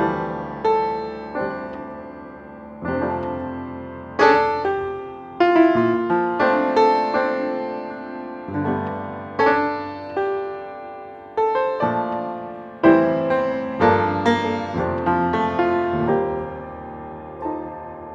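Background piano music: slow chords and single notes, each struck and left to ring and fade.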